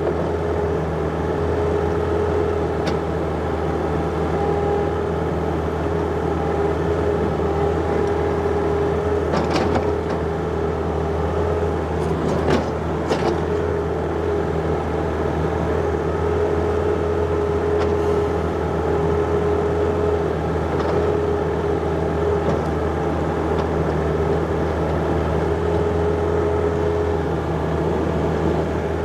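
John Deere 50ZTS mini excavator's diesel engine running steadily under working load, with a higher whine that comes and goes as it works. A few short clanks about a third of the way in.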